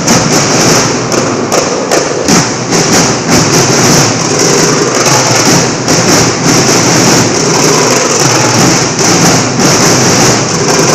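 Marching-band drumming and music for a majorette routine, a steady beat of about two drum strokes a second under a dense wash of sound, loud and distorted on the phone's microphone.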